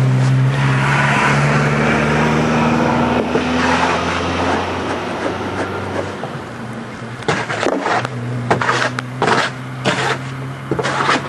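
A motor running with a steady low hum, which cuts out about six seconds in and starts again near eight seconds. Over the last few seconds there is a series of sharp knocks and clatters.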